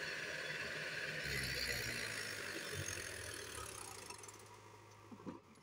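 Diesel tractor engine running steadily, growing fainter over the last two seconds.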